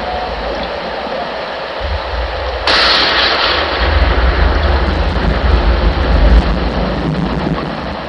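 Simulated thunderstorm played through a model-railroad sound system with a subwoofer: a steady rain-like hiss, then a sudden thunderclap about two and a half seconds in that rolls on as a deep, heavy rumble.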